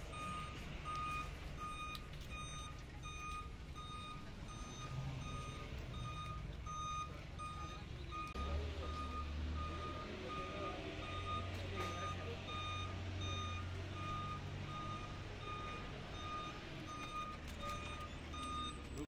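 A truck's reversing alarm beeping at an even, steady rate over city traffic noise. A low vehicle rumble swells from about halfway through.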